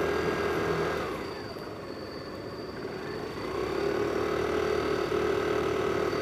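Motorcycle engine running as the bike rides along, its pitch dropping about a second in and rising again from about three seconds.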